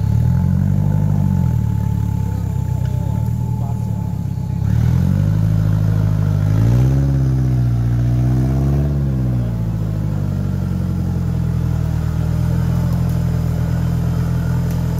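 Off-road buggy's engine revving in repeated swells as it climbs a steep dirt bank, several rises and falls in pitch, then running steadily higher up the climb near the end.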